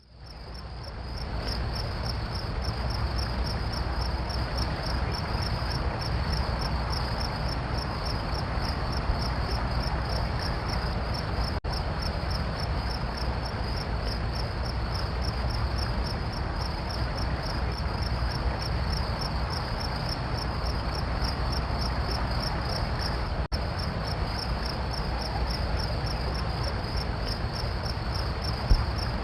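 Crickets chirping in a dense, rapid, steady trill that fades in over the first second or two, over a constant low rumble and hiss.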